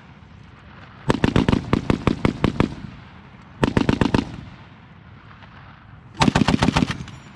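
M2 .50-calibre heavy machine gun firing in bursts: a long burst of about a dozen rounds about a second in, a short burst midway, and another burst of about seven rounds near the end.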